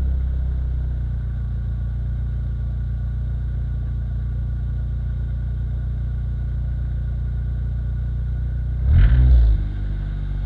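Turbocharged Nissan Micra engine and exhaust running at steady revs under way, heard from beneath the car, the freshly rebuilt engine still being run in. About nine seconds in there is a brief, louder surge with the pitch swinging, then the engine settles back to its steady note.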